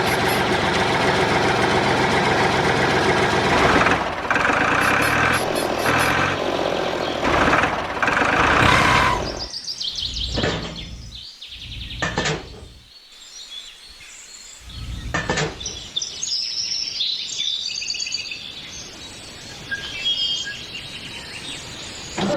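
Small engine running loudly for about nine seconds, then cutting out in stutters. After that, birds chirp faintly over quiet background noise.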